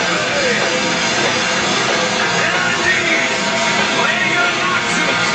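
Rock music playing steadily, with what may be a singing voice in it.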